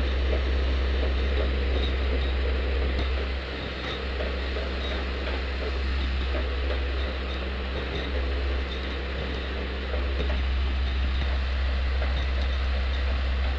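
Thread-rolling machine for fluted steel nails running: a steady low hum under a dense, even hiss of machine noise.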